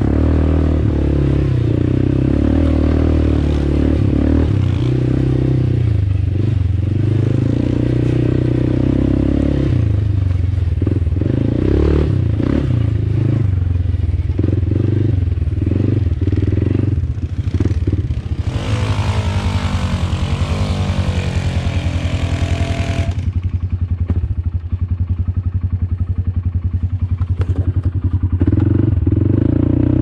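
Kymco Maxxer quad's single-cylinder engine running as it is ridden over a rough trail, the throttle opening and easing off again and again. About two-thirds of the way through a loud rushing noise covers it for several seconds, then the engine settles to a steady idle.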